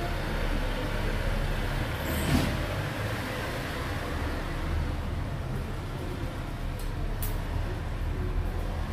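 Steady low rumble of background noise, with a couple of brief faint clicks, one a couple of seconds in and one near the end.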